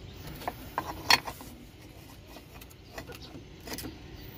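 Sharp metal clinks from a brake lining and bolts being handled on a Cessna 208B Grand Caravan's wheel brake assembly. There are a few scattered clinks, the loudest about a second in.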